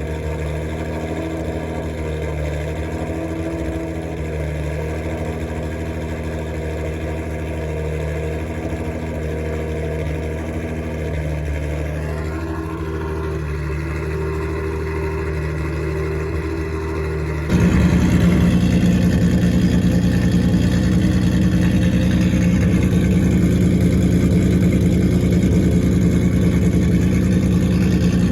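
Lexus IS350's 2GR-FSE V6 with stage 3 camshafts running at a steady idle. About two-thirds of the way in it suddenly becomes much louder and rougher, and stays there.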